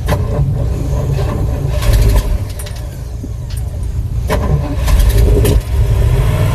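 1968 Pontiac Ventura's engine on a cold start in freezing weather, running unevenly with two louder surges, about two seconds in and about five seconds in.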